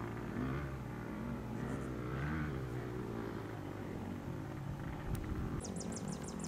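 Off-road motorcycle engine revving up and down, not close by, as a rider works along a hillside dirt trail. Near the end a high, rapid chirping at about six a second begins.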